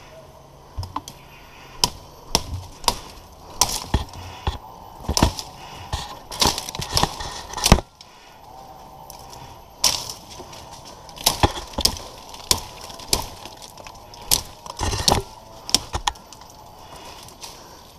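Twigs and small branches in a tree's crown snapping and cracking: a string of sharp cracks at uneven intervals, the loudest about eight seconds in.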